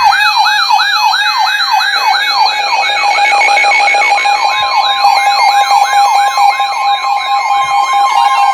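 Electronic emergency alert siren tone in a fast yelp, each sweep falling from high to low, about four to five times a second, over steady alert tones. A second steady tone joins about four seconds in.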